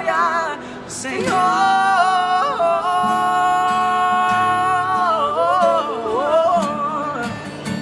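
A sung vocal run without recognisable words: the voice slides up and down through quick ornaments, holds one long steady note for about two seconds midway, then breaks into more runs, over acoustic guitar accompaniment.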